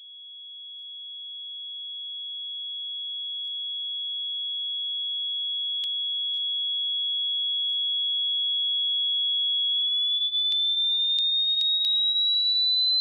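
A single high-pitched pure electronic tone that swells slowly from faint to loud. Over the last few seconds it glides gently up in pitch, with a few faint clicks along the way.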